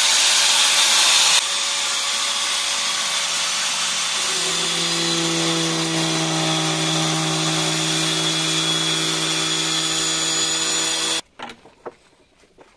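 Handheld electric cutting machine running as it cuts through the side of a plastic fish crate, a steady power-tool whine with a low hum joining about four seconds in. It cuts off suddenly near the end, leaving a few small clicks.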